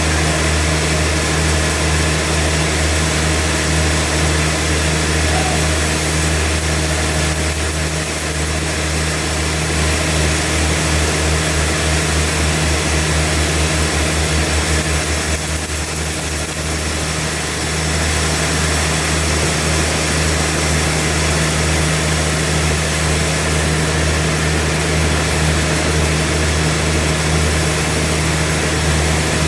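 Sawmill engine running steadily with a deep, even hum. Partway through it briefly pulses and dips, then settles back to the same note.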